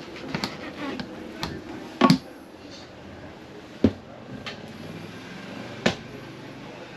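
A handful of sharp knocks and clunks inside a small room over a low background hum, the loudest a quick double knock about two seconds in.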